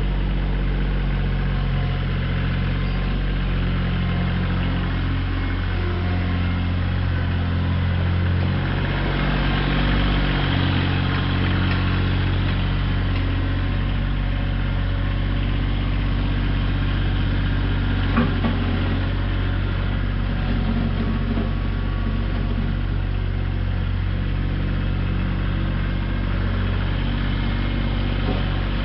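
Kioti CX2510 compact tractor's three-cylinder diesel engine running steadily as the tractor drives off and turns, its pitch shifting about a third of the way through. There is a brief knock partway through.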